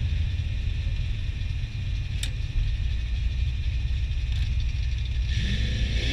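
Turbocharged 4.8-litre LS V8 idling with a steady low rumble, heard from inside the car's cabin, with a single sharp click about two seconds in.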